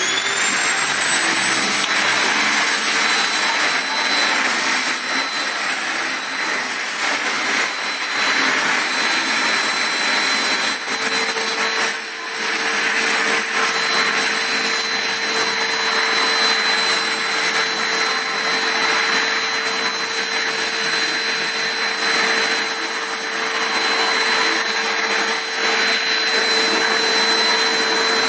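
Household vacuum cleaner switching on, its motor whine rising to full speed in the first second, then running steadily. A lower steady hum joins about eleven seconds in.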